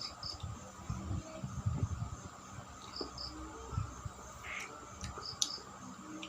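Close-up chewing and mouth noises of someone eating rice and ripe mango by hand. A short high double chirp sounds three times, about every two and a half seconds.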